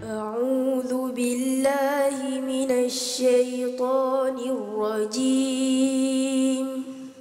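A young girl's voice chanting Quranic recitation in a slow, melodic style, with long held notes and ornamented turns in pitch.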